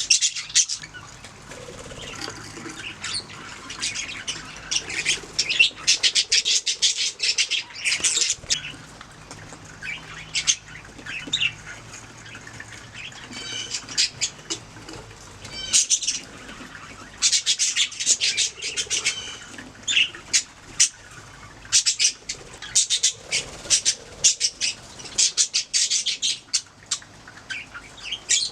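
Budgerigars chirping and squawking in bursts of rapid, scratchy chatter, several calls a second, with brief lulls between bursts.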